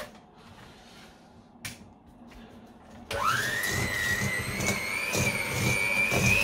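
A few small clicks, then about three seconds in an electric hand mixer switches on: its motor whine jumps up and keeps climbing slowly in pitch as the beaters work butter and sugar in a stainless steel bowl.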